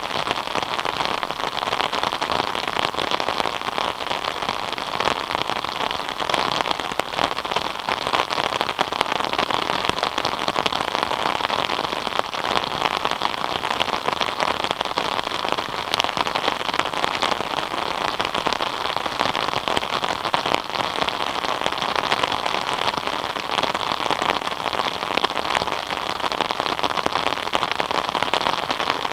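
Steady rain falling, with many separate drop hits heard through it.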